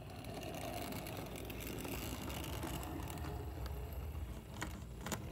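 HO scale model train running on the layout track: a steady whirring rumble of motor and wheels, with a couple of sharp clicks near the end.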